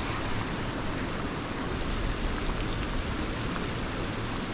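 Steady hiss of heavy rain falling, with a few faint ticks of single drops.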